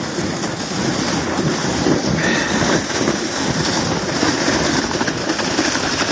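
Sled sliding fast down a snow run, its bottom scraping and rattling over the packed, lumpy snow in a steady rushing noise.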